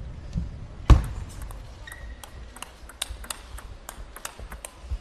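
Table tennis rally: the celluloid ball's sharp clicks off rubber bats and the table, one hard click about a second in, then quicker, lighter clicks two or three a second.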